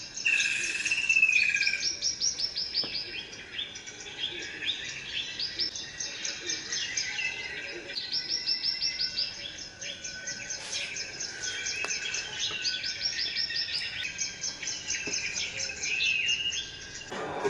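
Recorded birdsong from a 4K nature-footage soundtrack: a busy chorus of high chirps and trills, with several runs of rapidly repeated chirps.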